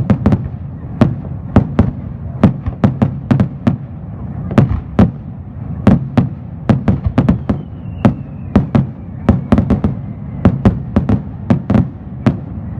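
Fireworks display: a rapid, irregular barrage of loud bangs, several a second, over a continuous low rumble of further explosions.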